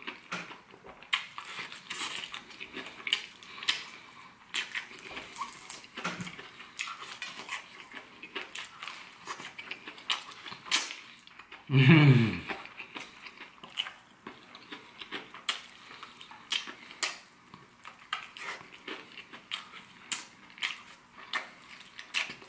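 Close-up eating of crispy fried chicken: wet chewing and smacking with many short crackles and clicks as meat is torn from the bone. A brief low hum from the eater about halfway through.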